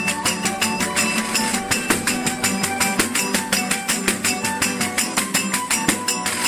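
A verdiales folk band playing: acoustic guitars strummed at a quick, even beat of about six strokes a second, with a large jingle-rimmed frame drum and a violin.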